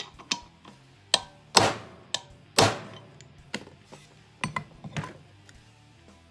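Hammer blows on a bearing race driver, driving a new wheel bearing race into a brake drum hub until it seats on its lip. Sharp metallic strikes through the first three seconds, two of them loud and leaving the drum ringing, then lighter clanks near the end as the tool and drum are handled.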